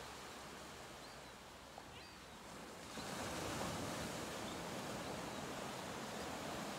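Small ocean waves breaking and washing up a sandy beach, a steady surf hiss that swells as a wave breaks about three seconds in.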